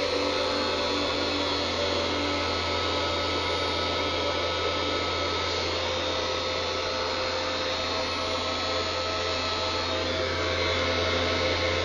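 Handheld Master heat gun running steadily, its fan motor blowing hot air with an even whir and a constant hum, aimed at a vinyl floor tile to soften it and its adhesive for peeling.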